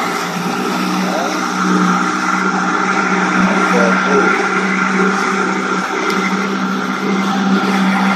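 Mercury outboard motor running steadily at speed, a constant droning engine note, mixed with the rush of water churning in the wake behind it.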